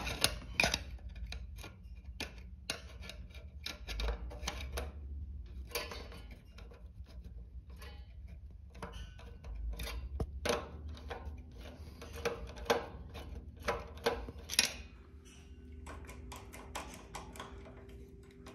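Screwdriver turning out a mounting screw on a Honeywell zone valve power head: irregular metallic clicks and ticks of the tool on the screw and sheet-metal bracket. A faint steady hum comes in about halfway through.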